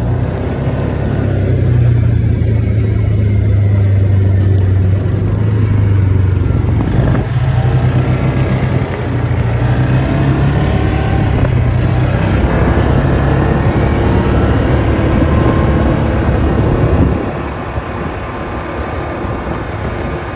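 Yamaha Viking side-by-side UTV running under way: a steady low engine drone with a fainter whine that rises and falls above it. It eases off about three-quarters of the way through.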